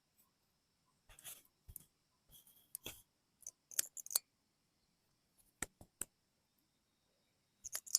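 Rustling and handling of gear while groping for a flashlight, with sharp plastic clicks: three quick ones about halfway through, more near the end, as the flashlight's switch is pressed. The flashlight is not lighting.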